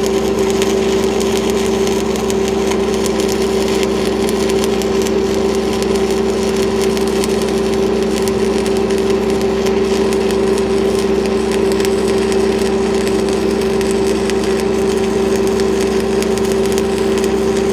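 Shielded metal arc (stick) welding: the arc of a cellulose-coated electrode crackles and sizzles steadily as it runs a downhill bead on steel pipe, with a steady engine hum underneath.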